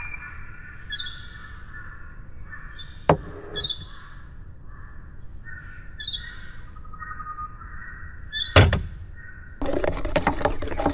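Morning birdsong: a chorus of repeated calls with higher chirps over it. A sharp knock comes about three seconds in and another at about eight and a half seconds, then a burst of clattering handling noise near the end.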